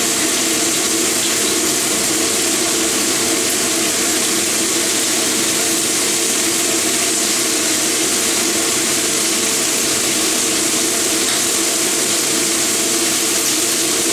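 Chicken pieces sizzling steadily in a hot frying pan over a gas flame, browning in their own rendered fat without added oil.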